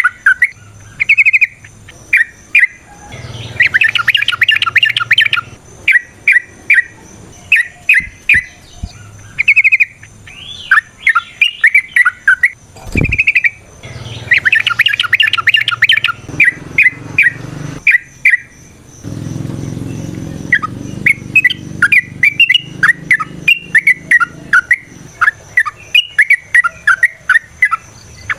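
Yellow-vented bulbul (trucukan) singing a run of short, bubbly chirping notes, broken by fast rattling trills about 4 and 15 seconds in. A single knock comes about 13 seconds in.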